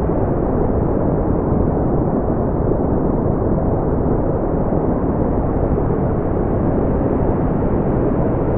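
Steady brown noise: an even, deep rushing hiss without pitch or rhythm, with most of its weight in the low end and little above the midrange.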